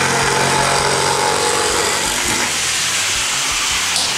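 An electric power tool's motor running steadily: a loud, even whirring noise with a low hum beneath it, easing off slightly about halfway through.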